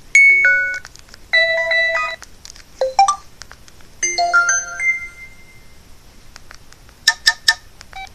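LG Revere 3 phone ringtones and alert tones played one after another through the phone's speaker. First comes a short falling run of notes, then a brief jingle, a quick rising chirp, another short jingle, and three fast beeps near the end.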